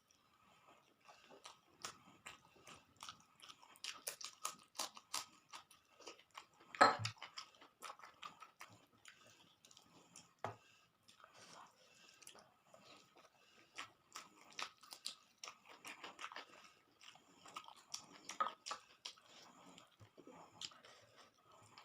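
A person chewing and biting food, with many short crisp clicks and crackles at an irregular pace and one louder crack about seven seconds in.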